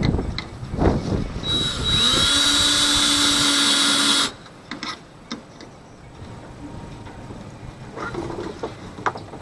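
Handheld power tool running for about three seconds with a steady high whine, then stopping suddenly, with scattered knocks and clicks around it.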